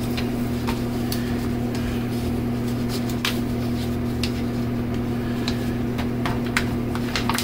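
A steady low electrical hum, with scattered light clicks and rustles of a package being handled and opened by hand.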